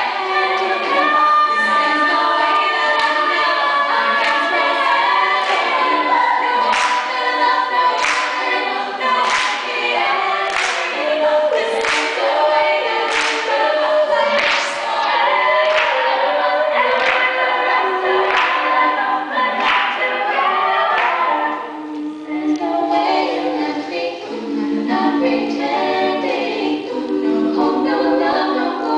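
All-female a cappella group singing in close harmony. A sharp percussive beat comes about every second and a quarter through the first two-thirds, then drops out, leaving the voices with a lower sung part coming forward.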